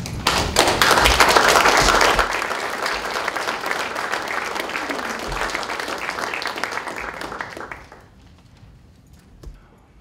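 Room full of people applauding, swelling quickly and loudest in the first couple of seconds, then fading and dying out about eight seconds in with a few last claps.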